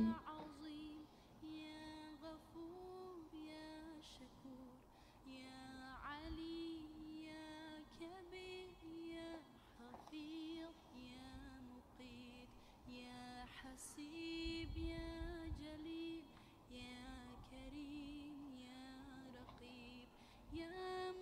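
A woman's voice singing a slow melody softly, long held notes stepping up and down in short phrases.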